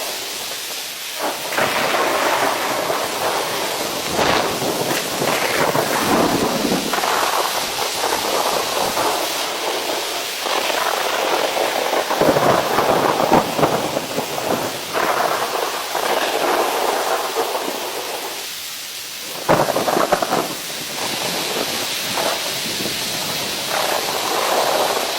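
Heavy rain falling, a continuous hiss that swells and eases every few seconds, with a sudden louder surge about nineteen seconds in.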